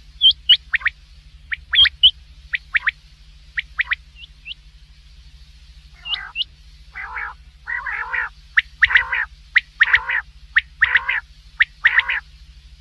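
Quail calling: sharp high chirps in the first half, then a run of harsher, buzzy calls about once a second, over a low steady hum.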